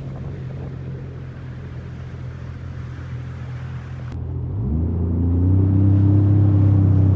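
Sea-Doo GTX 300 personal watercraft's supercharged three-cylinder engine running at low speed, then revving up about four and a half seconds in and holding steady at a higher pitch.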